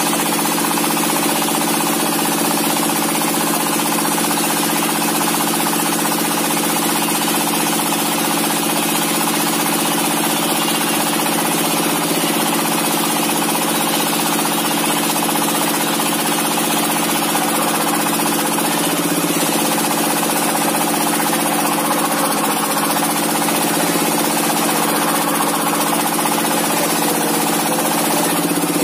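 Single-cylinder 'dompeng' diesel engine running at a steady pace, driving a table-mounted circular saw as a heavy timber beam is fed to the blade: one even, unbroken mechanical drone.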